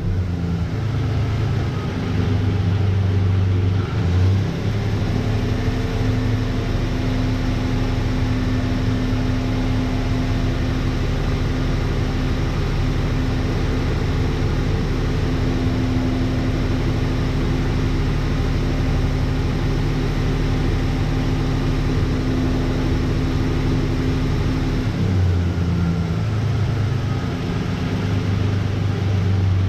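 1988 Dodge Ram's 3.9-litre V6 idling steadily on one of its first runs after being reinstalled. Its note shifts briefly about four seconds in and again a few seconds before the end.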